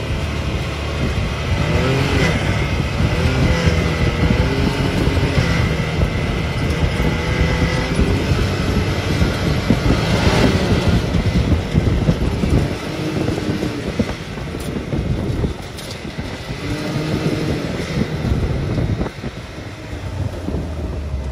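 Side-by-side UTV engine running on a trail drive, its pitch rising and falling with the throttle over a steady rumble of the ride, with a few sharp knocks.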